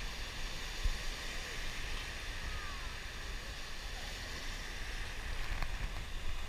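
Shallow ocean surf: broken waves and foaming whitewater washing in, a steady rushing noise with a deep rumble underneath.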